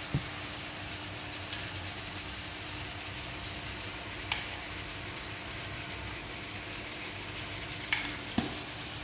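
Salmon head pieces sizzling steadily as they fry in oil in a wok, with four short sharp clicks from a utensil against the pan or jar.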